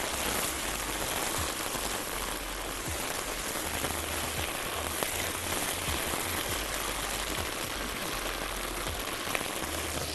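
Chopped onion, garlic and tomato paste frying in oil in a pan, a steady sizzle with scattered small crackles while it is stirred with a silicone spatula.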